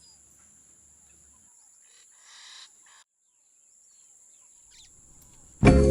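Faint outdoor background with steady high-pitched tones and a brief soft rush of noise about two seconds in; loud music starts abruptly near the end.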